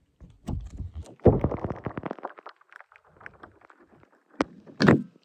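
Goofy Gooey slime being squeezed and worked by hand, with a burst of wet crackling and squelching from about a second in, then two short sharp noises near the end.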